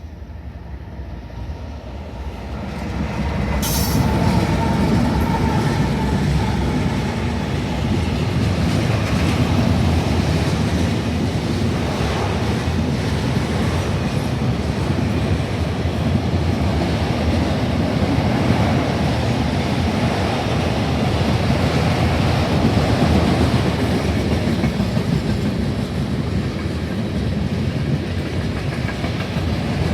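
Manifest freight train rolling past close by: a steady rumble with wheel clatter over the rail joints. It grows louder over the first few seconds, with a brief high squeal about four seconds in, then holds steady as the cars go by.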